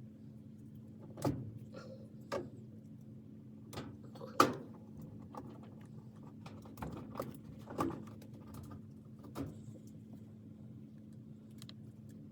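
Scattered clicks and small knocks of spade connectors being pulled off and pushed onto the terminals of a dryer's push-to-start switch, the loudest snap a little past four seconds in, over a steady low hum.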